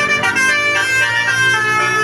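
Bus telolet horn playing a quick melody, several horn tones sounding together and stepping from note to note every fraction of a second.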